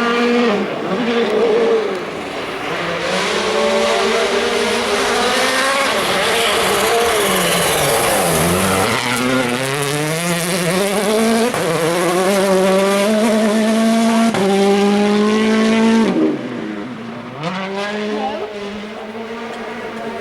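A rally car's turbocharged engine slowing for a corner, its pitch falling to a low point about eight seconds in, then accelerating away hard through several upshifts, the pitch climbing and dropping back at each gear change. The engine comes off the throttle about sixteen seconds in, with some tyre squeal on the gravel.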